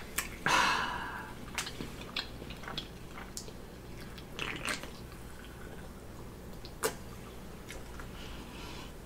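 Close-up mouth sounds of a person chewing a mouthful of burger: soft wet clicks and smacks. A sip from an aluminium can of sparkling water around the middle.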